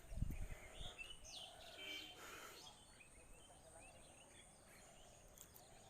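A few low thumps in the first second, then faint bird chirps over quiet background.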